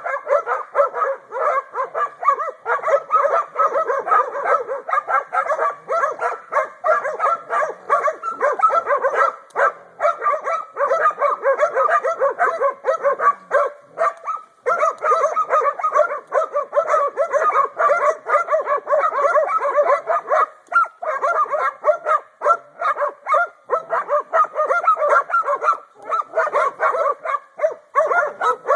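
Young hog dogs bay-barking nonstop at a hog they have cornered: rapid, overlapping barks with hardly a gap, and a brief lull about halfway through.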